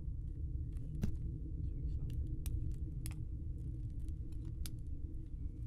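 A low, steady ambient rumble with a few faint, sparse clicks scattered through it.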